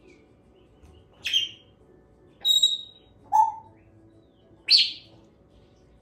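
Pet parrot giving four short, loud calls, one after another, the third lower-pitched than the rest.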